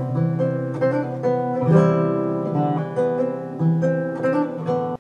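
A recorded country song's acoustic guitar passage, with no vocals, played back from an iPod through a rebuilt RCA RS-177A vacuum-tube console amplifier with a 12AX7 front end.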